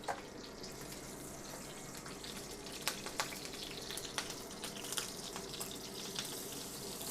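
Frozen butternut squash rice cake frying in hot oil in a frying pan: a steady sizzle with scattered crackles and pops.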